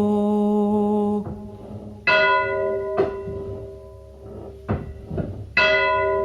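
A bell rings out from an earlier stroke, then is struck twice, about three and a half seconds apart, each stroke ringing and slowly fading, with fainter knocks between the strokes. A low steady hum stops about a second in.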